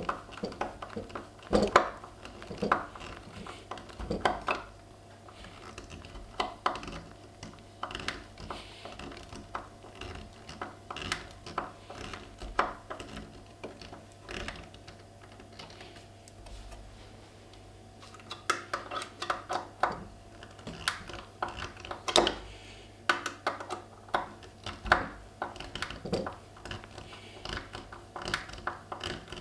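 Irregular light clicks, taps and knocks of small hard parts and hand tools being handled, over a steady low hum.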